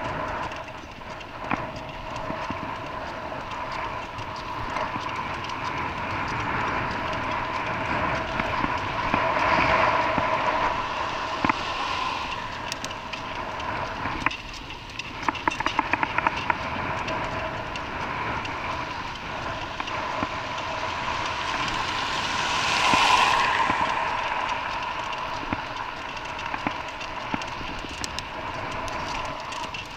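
Steady running noise of a moving vehicle with a constant whine. The noise swells twice, about a third of the way in and again about three quarters in, and a run of rapid sharp clicks comes midway.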